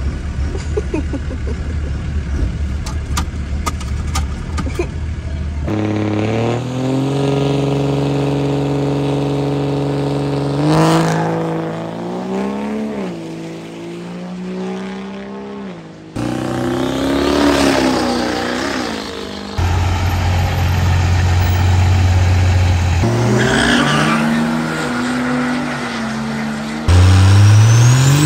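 Diesel pickup engines revving hard and accelerating in drag-race launches, heard as a string of clips that cut abruptly, after a steady low engine rumble from inside a truck cab. Near the end a diesel pickup revs up for a burnout.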